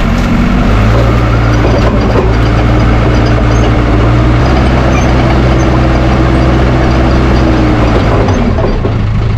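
Diesel engine of a Case 550G crawler dozer running steadily at close range.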